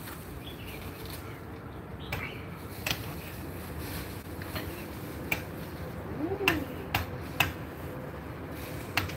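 About seven sharp clicks and taps, spread unevenly over several seconds, over a steady low hiss, with a brief low hum rising and falling about two thirds of the way through.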